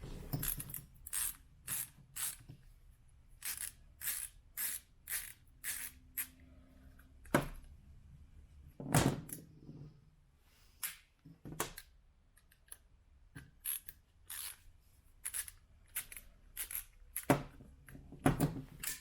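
Irregular small clicks and taps of hand-tool work inside a soundbar as screws are taken out and its metal and plastic parts are handled. A few louder knocks come about a third of the way in, about halfway and near the end.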